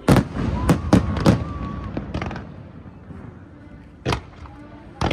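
Fireworks going off in sharp bangs with a rumbling echo: four in quick succession in the first second and a half, then single bangs about four and five seconds in.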